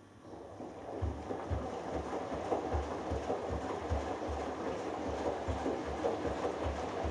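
Hoover Dynamic Next DXA610IW3 front-loading washing machine on its delicates wash, the drum turning for a spell of several seconds with the wet laundry and water sloshing and a low thud about twice a second. It starts up out of a pause and stops again, the gentle stop-start tumbling of a delicates wash.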